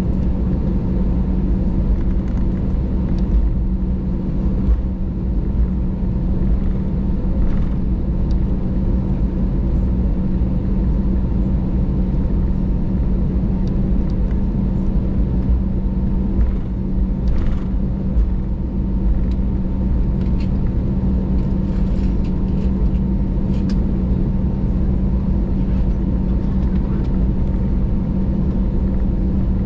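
Cabin noise inside an Airbus A220 taxiing, its Pratt & Whitney PW1500G geared turbofans at idle: a steady drone with a strong low hum and a fainter higher tone, plus a few faint rattles.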